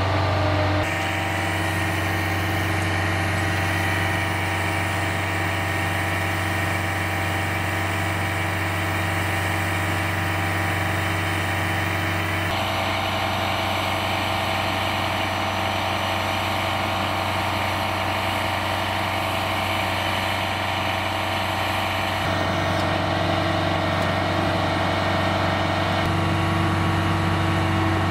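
Large military wrecker's diesel engine idling steadily, a constant low hum.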